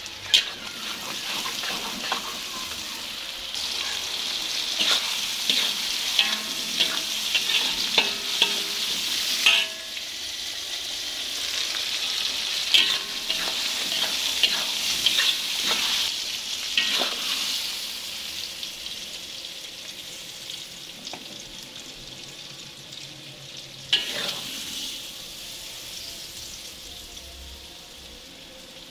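Onion and tomato masala sizzling in hot oil in a wok, stirred with a spatula that scrapes and clicks against the pan. The sizzle is strongest in the first half and dies down, with a single sharp knock about 24 seconds in.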